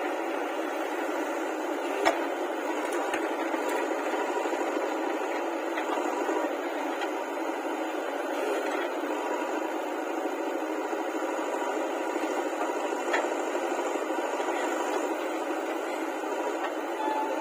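Steady mechanical running noise, typical of a JCB backhoe loader's engine at work, with a single sharp click about two seconds in.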